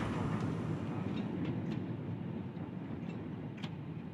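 Steady low rumble of a narrow-gauge peat train and its loading machinery, with a few faint clanks from the wagons.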